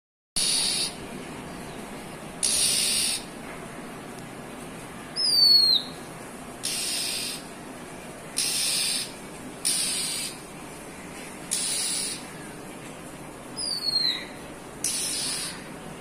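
A perched songbird giving a run of short, harsh, hissing calls, one every second or two, with a clear downward-sliding whistle about five seconds in and another near the end.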